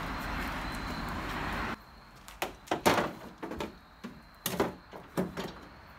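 Knocks and bumps of a loose car bumper cover being handled and set against the car's front end: a run of irregular knocks starting about two seconds in. Before them, a steady rushing noise that cuts off abruptly.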